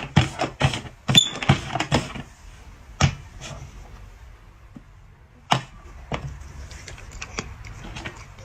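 A quick run of sharp knocks, about eight in the first two seconds, then a few scattered ones and fainter ticks.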